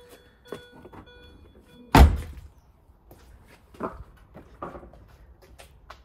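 A car door shut with one loud thud about two seconds in, followed by a few softer knocks. Faint steady tones sound in the first second and a half and then stop.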